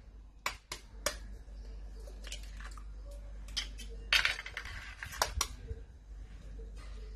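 Raw eggs being cracked one at a time against the rim of a glass mixing bowl: a few sharp taps and clinks on the glass, with a longer crunch of shell around the middle.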